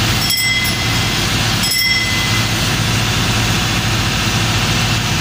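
Ship's machinery running with a steady low drone. A small altar bell rings twice, briefly, at the elevation of the chalice, about half a second and two seconds in.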